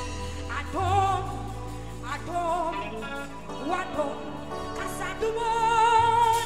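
Live gospel worship singing with keyboard and electric guitar band accompaniment over a steady bass. The voice glides between phrases and holds one long note with vibrato near the end.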